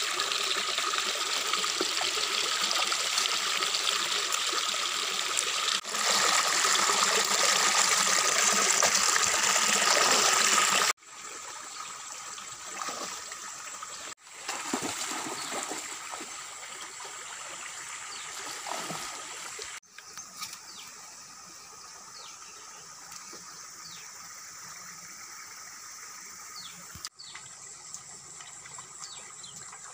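Stream water running and trickling over rocks, loud at first. After a cut about a third of the way in it is quieter, with water sloshing and swirling as a person wades through a pool, then a softer trickle with splashing steps through shallow water.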